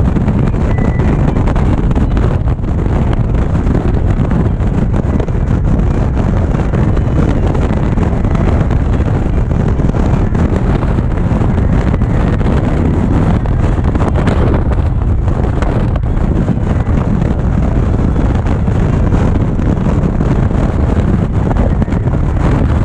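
Steady wind rush over the microphone from an Indian Chieftain V-twin motorcycle cruising at highway speed, with the engine and road noise running underneath.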